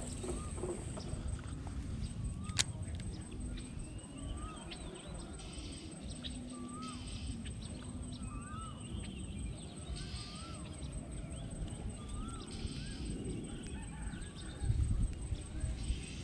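Birds calling: one bird repeats a short curved note about once a second, with higher gliding calls over it, all over a steady low rumble.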